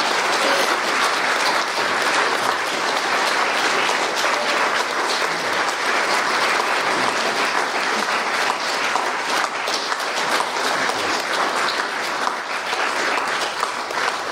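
Audience applauding, a steady sustained round of clapping from many people.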